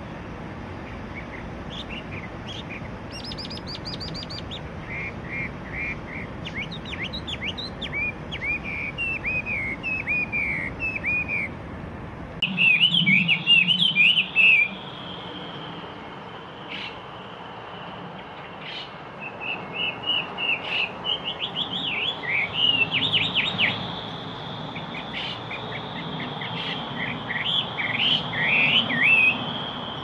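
Chinese hwamei singing: a long, varied song of clear whistled phrases, many of them quick series of repeated notes. From about halfway through, a steady high tone sits beneath the song.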